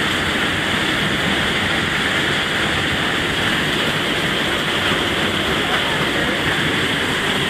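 Torrential rain pouring onto a conservatory roof: a steady, loud rushing hiss.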